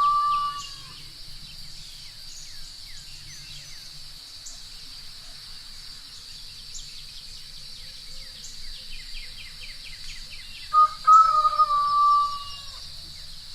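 A rooster crowing twice: the tail of one crow about a second in, then a full crow about two seconds long near the end. Small birds chirp throughout over a steady high drone.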